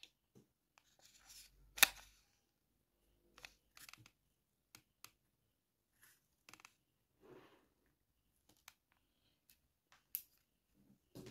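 Faint, scattered clicks and short rustles of small electronic components and wires being handled and set down on a sheet of cardboard, with a sharper click about two seconds in.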